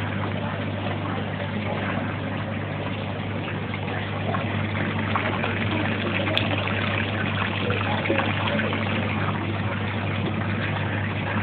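Aquarium pump humming steadily, with water bubbling and trickling in the tank.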